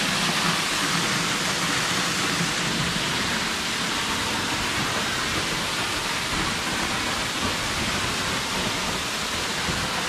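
Waterfall plunging from a rock bluff onto rocks and a pool: a steady rushing hiss of falling water.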